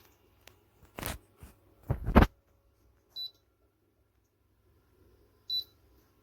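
Two handling knocks about a second apart, then two short high electronic beeps about two and a half seconds apart, like a humidifier's control-panel button beeps.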